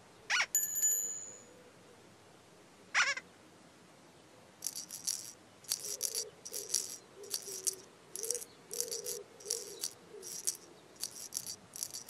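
Children's-show sound effects: two short squeaky sliding calls, the first trailing into a ringing chime, then a run of rattle shakes, about two a second, continuing to the end.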